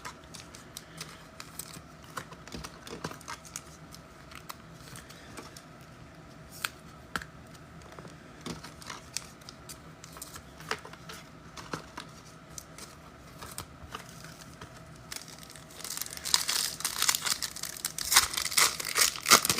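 Trading cards being handled, with scattered light clicks and taps. About sixteen seconds in comes a louder stretch of crinkling and tearing of a card pack's foil wrapper.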